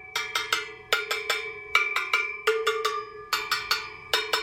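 Spokes of a Sur Ron Light Bee rear wheel tapped in quick runs of three or four strikes, about one run a second, each spoke giving a clear metallic ring. The tapping checks spoke tension by ear, with a tighter spoke standing out by its ring.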